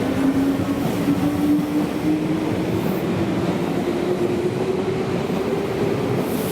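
Meitetsu electric train pulling away, its traction motors giving a steady whine that rises slowly in pitch as it accelerates, over the rumble of the train.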